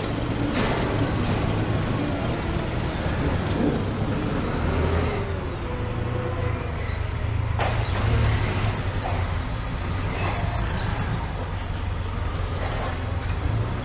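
A heavy vehicle's engine running with a steady low rumble, with a few sharp clicks and knocks over it.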